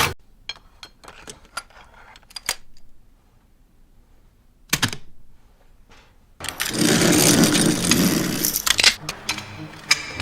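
Anime gun-reloading sound effects: a quick run of sharp mechanical clicks and clacks, then one louder clack a little before halfway. Later comes a loud, dense rush of noise lasting about two and a half seconds.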